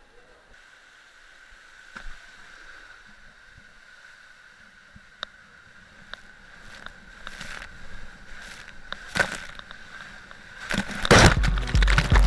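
Water rushing and sloshing as a rider slides down an enclosed water slide tube. It grows louder as the ride goes on, with a few knocks, and turns into loud, heavy water noise about 11 seconds in.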